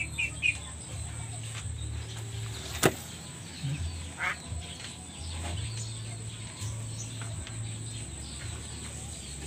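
Scattered faint bird calls, duck- or fowl-like, over a steady low hum, with one sharp click about three seconds in.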